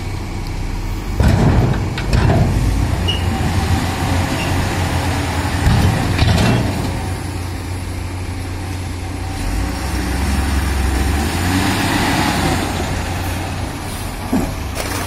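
Heavy diesel engines of a stuck Tata 3118 tipper truck and a Komatsu excavator running, growing louder about a second in, again around six seconds and around twelve seconds as the truck is worked out of the sand.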